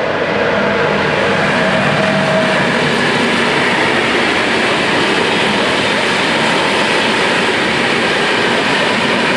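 Freight train passing over a level crossing: a loud, steady rumble and rattle of wheels on the rails that swells just as it begins and then holds.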